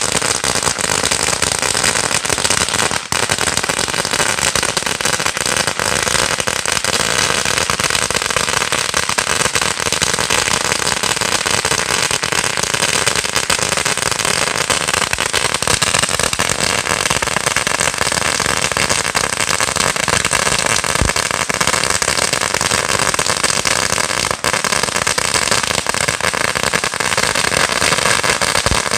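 A Phantom Fireworks 16,000-count firecracker strip going off as one dense, unbroken rattle of rapid bangs, with no let-up.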